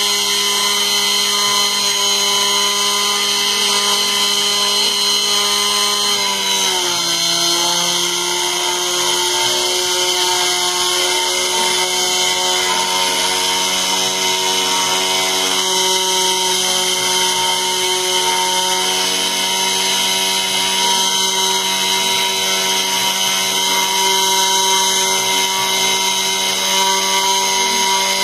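CNC router spindle whining steadily while a thin carving bit mills a relief into a wooden board. About six seconds in, its pitch drops slightly and then holds steady at the lower note.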